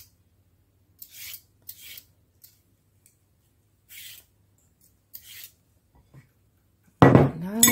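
Vegetable peeler scraping strips of peel off a carrot: about five short, separate strokes. Near the end there is a louder knock.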